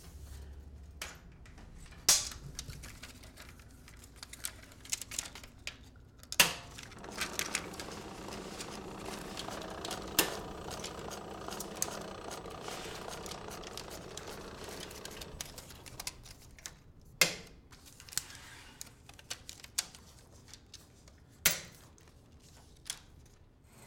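Sharp mechanical clicks and clacks at irregular intervals, with a denser stretch of rattling in the middle.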